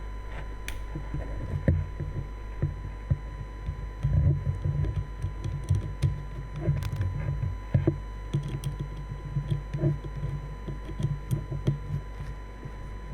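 Typing on a Crystalis80 mechanical keyboard with Durock POM switches in a stainless steel plate. Keys clack in quick irregular runs, busiest through the middle and thinning out near the end, over a steady low electrical hum.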